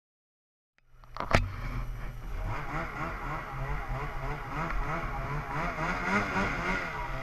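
Sound cuts in about a second in with a sharp click, then a snowmobile engine runs through deep powder, its pitch rising and falling as the throttle is worked.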